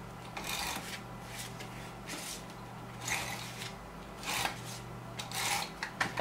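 Crafter's Companion double-sided tape runner drawn along a sheet of card in several short strokes, each a brief raspy zip.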